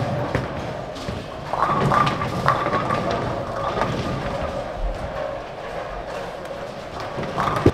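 Bowling alley din: balls rolling and pins crashing on the surrounding lanes, with several separate crashes and a sharp knock near the end, over background music holding steady notes.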